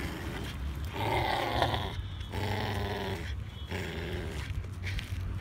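Four-month-old Pitbull/American Staffordshire Terrier puppy growling as it bites and tugs on a leash strap, in long rough stretches broken by short pauses.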